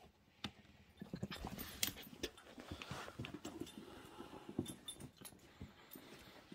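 A basset hound and a corgi play-wrestling: low play-growls with sharp clicks and knocks of scuffling paws and jaws.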